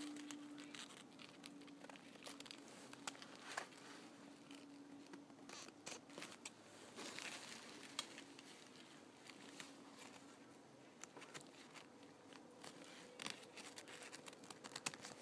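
Scissors slowly cutting through paper towel: faint, scattered snips with soft paper rustling.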